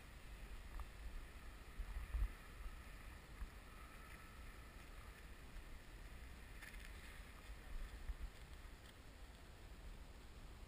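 Wind buffeting the microphone, with the faint, slightly drifting whine of a distant electric RC FunJet's motor and propeller in flight.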